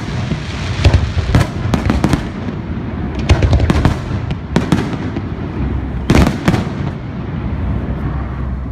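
Fireworks display: a rapid series of firework bursts and bangs with echoing crackle, busiest in the first half and with a loud pair of blasts about six seconds in, over a continuous low rumble.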